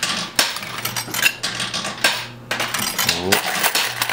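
Quarters clinking and clattering in an arcade coin pusher machine, a busy run of sharp metallic clinks as coins drop and shift on the coin bed.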